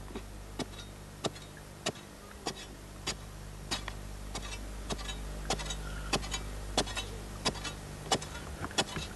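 Metal digging bar striking hard red earth in a steady rhythm, about three strikes every two seconds, while digging out a honey ant nest, over a steady low hum.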